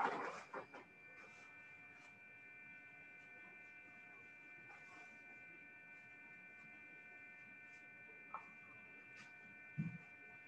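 Near silence with a faint steady electrical whine of several high tones. A few faint knocks and rustles come in the first second, and single soft ticks come later.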